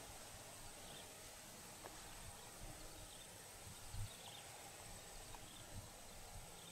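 Faint outdoor swamp ambience: a steady thin high-pitched hum with a few soft chirps, and one dull low thump about four seconds in.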